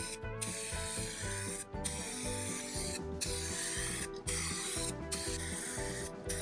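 Aerosol can of 2K clear coat spraying in repeated passes, a steady hiss that stops briefly between passes about once a second, over background music.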